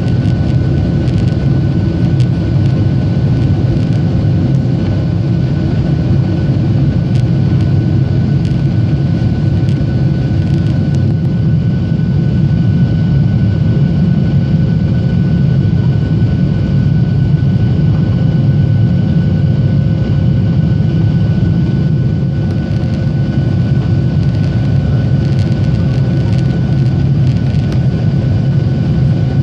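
Boeing 737-700's CFM56 jet engines at takeoff thrust, heard from inside the cabin as the airliner lifts off and climbs: loud, deep, steady engine and airflow noise with a thin steady whine on top.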